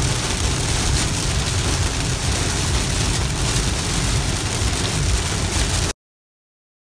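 Heavy rain on a moving car, heard from inside the cabin: a steady rush of rain over a low road rumble. It cuts off suddenly near the end.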